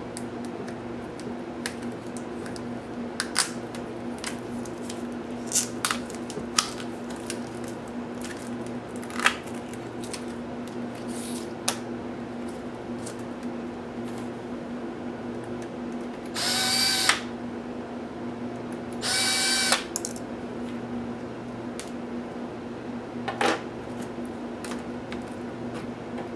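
A small electric screwdriver whirs twice, each run under a second and about two and a half seconds apart. Scattered clicks and taps come from the laptop's LCD panel and plastic display parts being handled, over a steady low hum.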